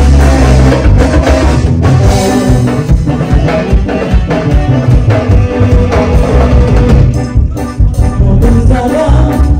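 Live Latin dance band music, loud, with heavy bass and a steady drum beat.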